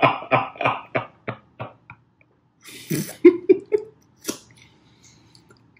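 A man laughing hard in rapid bursts that fade out, then a second breathy fit of laughter about three seconds in. Near the end there is a short wet suck as he eats a piece of boiled seafood.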